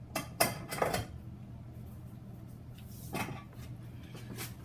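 Short metallic clicks and knocks in the first second as a metal wall-mounted mixing station is seated back onto its wall bracket, then two more handling knocks later. A low steady hum runs underneath.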